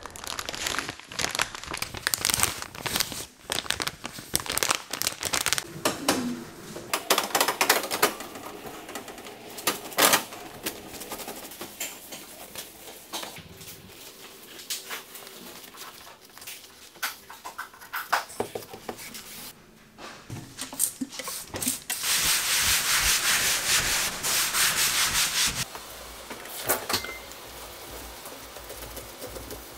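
A cleaning sheet and cloth wiping and scrubbing kitchen surfaces, the wall by the stove and a stainless steel sink, in irregular scratchy strokes. About three quarters of the way through, a steady hiss lasts a few seconds.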